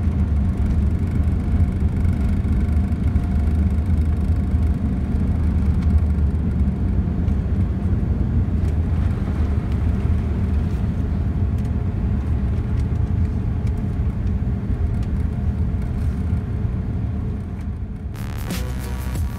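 Cabin noise inside a Boeing 787-9 on its takeoff roll: a steady low rumble of the engines and the wheels on the runway. The rumble eases a little near the end as the aircraft lifts off, and music then comes in.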